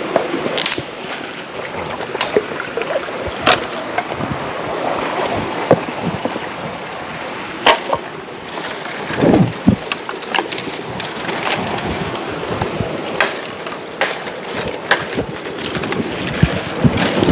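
Rushing river water, a steady wash, with irregular sharp knocks and clicks and a couple of heavier thumps about halfway through.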